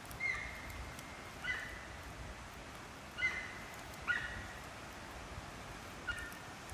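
Campfire burning with a steady hiss and faint crackles. Five short, high whistling tones break in over it, the first held for about a second.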